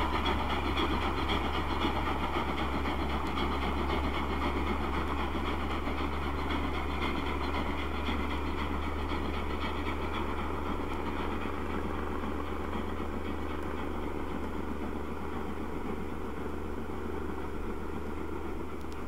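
Class 01 Pacific steam locomotive No. 001 181 hauling its train upgrade without a banker, the sound slowly fading as it climbs away, over a steady low drone.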